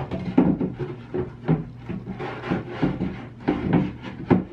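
A particleboard shelf being worked into a cabinet at an angle, knocking and scraping against the cabinet's sides and metal shelf pins in a run of irregular wooden knocks and rubs.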